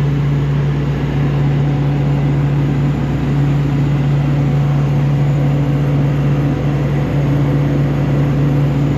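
Engine-driven air compressor of a sandblasting rig running steadily, a constant low drone with a hiss above it, while the blast pot is being filled with sand.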